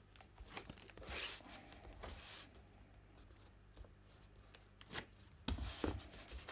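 Paper being handled: faint rustles and scrapes as a patterned-paper envelope is folded and smoothed by hand, with a few sharper scrapes and taps near the end.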